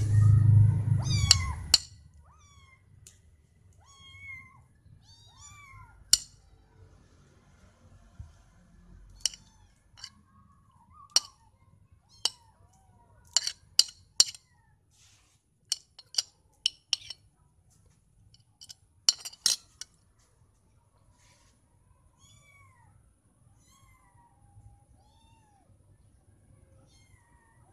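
Kittens meowing over and over in short, high, bending calls, growing sparser and fainter in the last several seconds. Sharp clicks and taps come scattered through the middle, and a low rumble, the loudest sound, fills the first two seconds.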